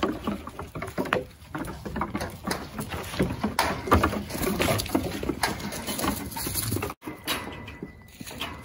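Nigerian Dwarf goat kids' hooves clattering on a wooden play table, bench and ramp as they jump about, many quick knocks in a row. The sound breaks off for an instant about seven seconds in and is quieter after that.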